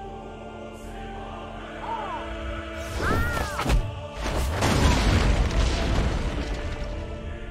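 Dramatic background music, with a cartoon cat's cry about three seconds in, then a heavy boom and crash of breaking rock from about four and a half seconds in that fades away slowly.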